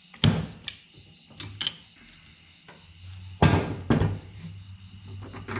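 Hand-work noises from taking apart a Makita angle grinder's gear head: a handful of sharp knocks and clicks as the screwdriver, small screws and the grinder housing are handled and set down on the workbench. The loudest knock comes about three and a half seconds in.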